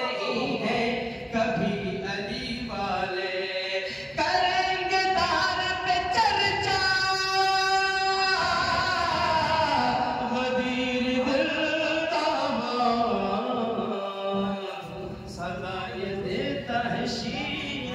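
A man singing devotional verse into a microphone over a PA, in long melodic phrases, holding one long note about seven seconds in.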